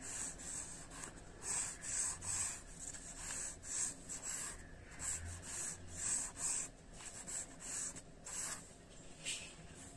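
Pencil strokes scratching across drawing paper: a quick run of short lines, one after another, roughly two or three a second, as box shapes are sketched.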